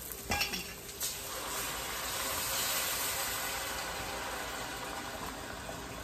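A couple of glass clinks, then onion broth pouring into the hot enameled cast-iron pot of an electric Dutch oven and sizzling for a few seconds, building and then slowly fading.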